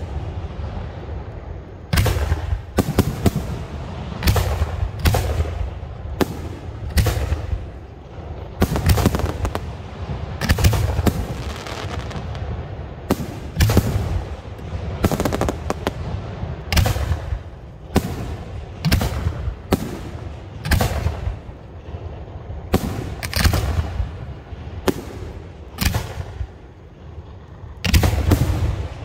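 Aerial fireworks bursting overhead in quick succession: a run of sharp bangs, roughly one a second and irregularly spaced.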